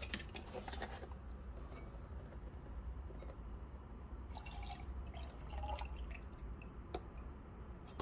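Milk pouring from a carton into a milk-frothing jug, faint, with a few light clicks and knocks from handling the carton and jug.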